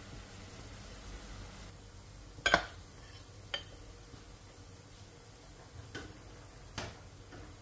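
Metal ladle clinking against a ceramic bowl as a rice ball and broth are served into it: four short clinks, the first and loudest about two and a half seconds in.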